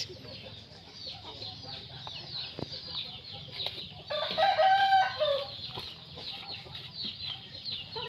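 A rooster crows once about four seconds in: a loud call lasting over a second that drops in pitch at the end. Constant high, quick chirping and a steady low hum run under it.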